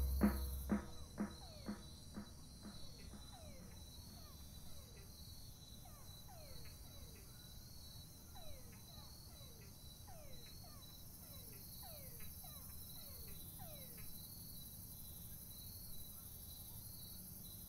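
Faint outdoor ambience of chirring insects, like crickets, with short falling calls repeating about once a second. At the start, a run of quick taps fades away over the first few seconds.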